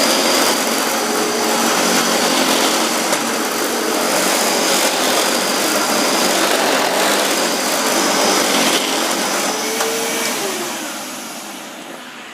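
Hoover WindTunnel Self-Propelled Bagless upright vacuum cleaner running with a steady, loud whine, then dying away over the last couple of seconds as the motor winds down.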